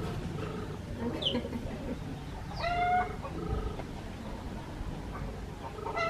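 Birds calling: short pitched notes at intervals and one longer call that bends in pitch about three seconds in.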